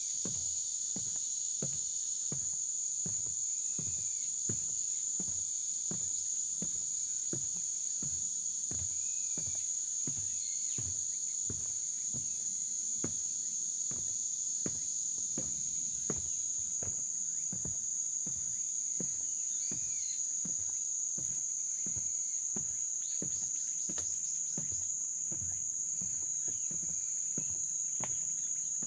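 Footsteps walking at a steady pace on a forest trail, about two steps a second, over a steady high-pitched drone of insects, with a few brief bird chirps.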